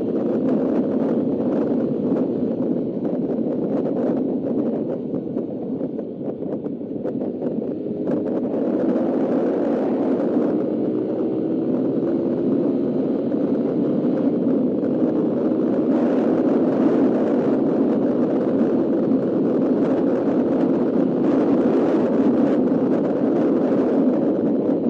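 Suzuki Raider R150 motorcycle engine running while riding along the road, mixed with wind noise. The engine eases off about five seconds in, then pulls up again with a rising pitch.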